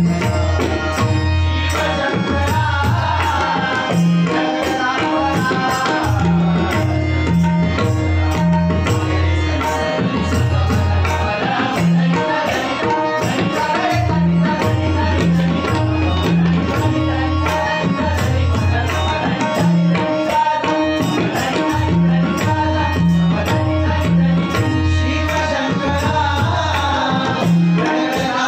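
Tabla and pakhawaj playing a bhajan rhythm, with recurring deep bass drum strokes, under male singing of a 'notation' passage.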